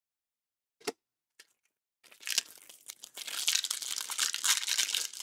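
Clear plastic wrapper on a pack of trading cards crinkling and tearing as it is pulled open by hand, starting about two seconds in after two faint clicks.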